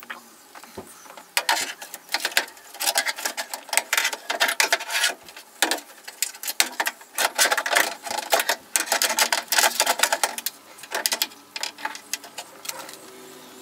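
A power window regulator's metal frame and cable clattering and knocking against a Mk1 Mazda MX-5's steel inner door as it is worked into place. Irregular rattles and clicks start about a second in and thin out near the end.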